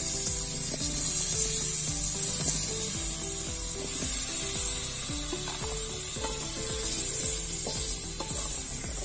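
Potato cubes being dropped into hot mustard oil in an aluminium karai, the oil sizzling steadily, with a few light knocks as pieces land in the pan in the second half. Background music with a simple melody plays over it.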